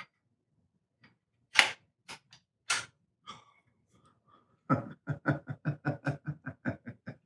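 Metal mechanism of a hand-machined replica revolver being worked, its parts freshly greased: a few separate sharp clicks, then a fast, even run of about a dozen ratcheting clicks, roughly five a second, each with a short metallic ring.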